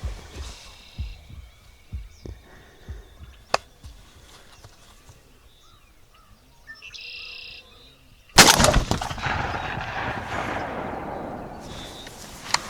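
A single shotgun blast about eight seconds in, loud and sudden, its echo rolling away over several seconds. Before it, a few soft low thumps and a brief high call.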